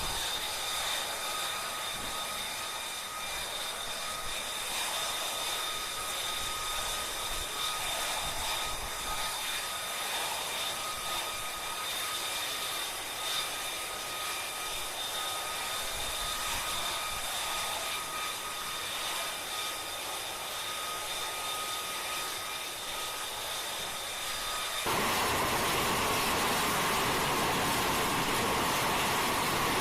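F-35B Lightning II jet engine (Pratt & Whitney F135) running steadily with a high whine over a rushing noise; about 25 seconds in the sound turns suddenly louder and rougher, with the whine buried.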